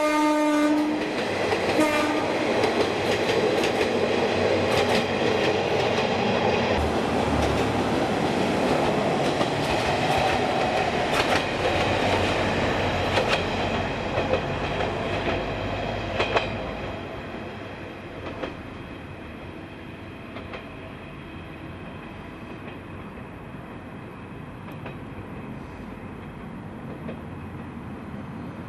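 Kanto Railway Jōsō Line diesel railcar sounding its horn, a blast of about a second and then a short one, then running past with its wheels clattering over the rail joints. The train noise dies away about two-thirds of the way through.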